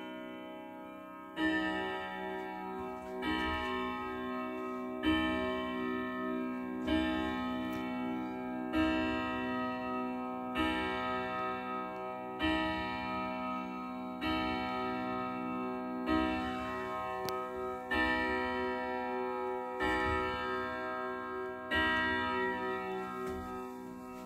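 Thomas Byrne triple-chime floor clock striking the hour: twelve evenly spaced strokes, a little under two seconds apart, each one ringing on and fading into the next.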